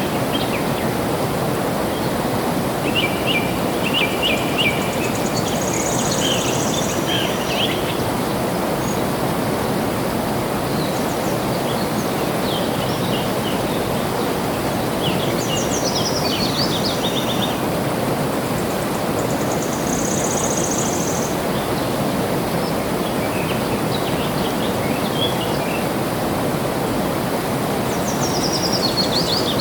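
Steady rush of flowing water, with small birds chirping and trilling above it in short bursts of quick notes every few seconds.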